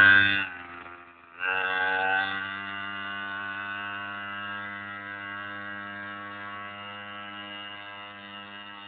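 Pocket bike's small engine running at high revs. It eases off for about a second, opens up again about a second and a half in, then fades steadily as the bike rides away.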